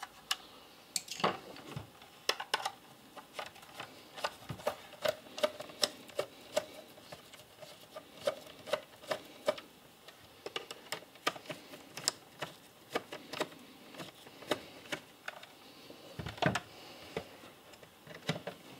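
Irregular sharp clicks and light plastic taps, a few a second, as a screwdriver works at the screws of a plastic battery-charger case and the case is turned over in the hand, with a duller knock near the end.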